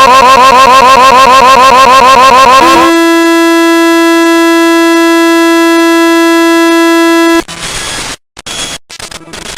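Loud electronic glitch noise: a fast warbling tone repeating several times a second switches about three seconds in to a steady, flat buzzing tone, which cuts off about seven seconds in to crackling static that drops out in bursts.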